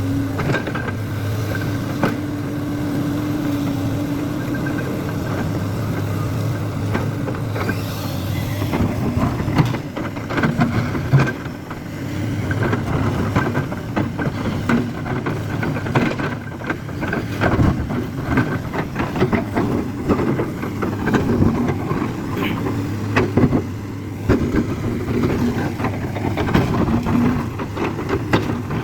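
JCB excavator's diesel engine running steadily, with frequent knocks and rattles from about ten seconds in.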